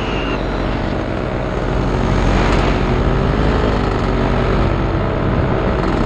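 Paramotor engine running steadily in flight, getting a little louder about two seconds in, its pitch wavering slightly.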